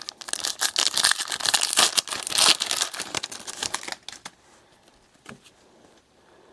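Foil trading-card pack wrapper being torn open and crinkled, a dense crackling rustle for about four seconds, then a few faint clicks of cards being handled.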